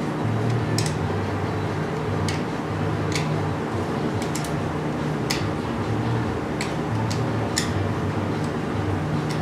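Sharp, light clicks at irregular spacing, roughly one a second, over a steady low hum.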